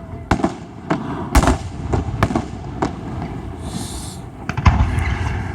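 Fireworks display: aerial shells bursting in quick succession as a string of sharp bangs, loudest about a second and a half in and again near the end, with a brief hiss a little before the last bangs.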